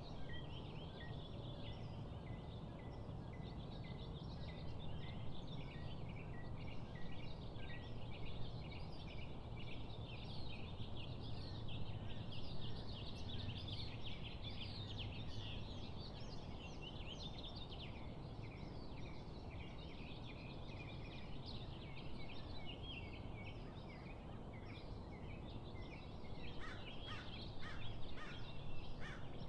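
Dawn chorus of many small birds chirping and singing together over a steady low rumble, with a burst of louder, rapid calls near the end.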